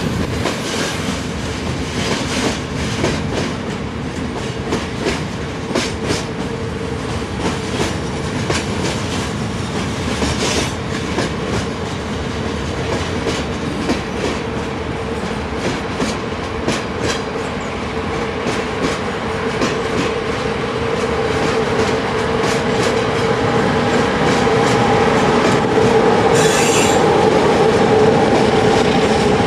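Loaded coal wagons of a freight train rolling past, wheels clicking over rail joints with a steady wheel squeal. A brief higher squeal comes near the end, as the train gets louder and a diesel locomotive at its rear draws close.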